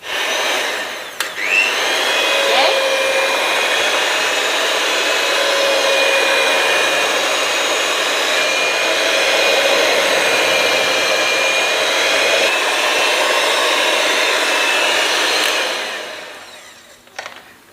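Electric hand mixer running with a steady motor whine. The pitch jumps briefly about two seconds in, then holds steady until the motor winds down near the end.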